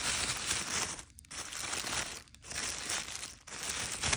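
Tissue paper crinkling and rustling as a gift is pulled out of its wrapping by hand, in several handfuls with three brief pauses.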